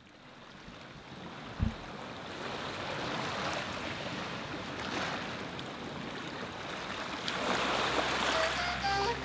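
Sea surf, a steady rushing wash of waves that fades up gradually from very quiet, with one brief low thump about a second and a half in. Music with held notes begins near the end.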